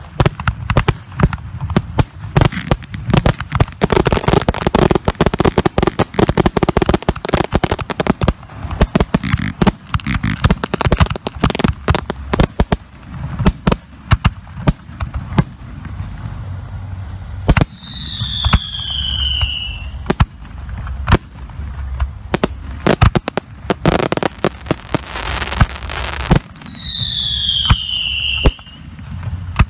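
Professional aerial fireworks display: shells bursting with sharp bangs in quick succession, densest in the first dozen seconds, then more spread out. Two long whistles falling in pitch sound over the bangs, one past the middle and one near the end.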